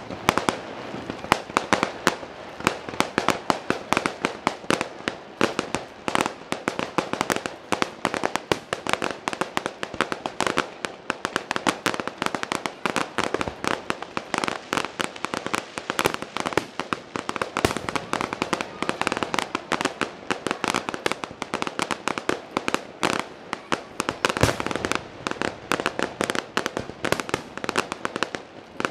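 Fireworks finale barrage: aerial shells and comets going off in a rapid, unbroken string of bangs, several a second, with no let-up.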